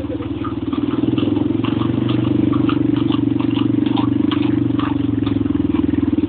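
A motor engine running steadily, the loudest sound, with irregular clatter of horseshoes and cart wheels on a cobbled street.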